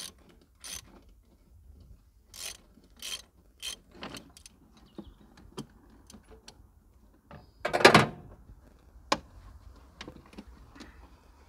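A socket ratchet wrench clicking in short strokes about half a second apart, then a few scattered clicks. About eight seconds in there is one loud clatter.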